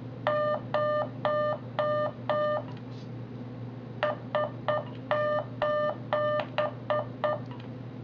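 Morse code beeps from a phone app's practice keyer, played through the phone's speaker as one steady mid-pitched tone. First come five long dahs, sent by holding the right paddle. After a pause comes SOS: three short dits, three dahs, three dits.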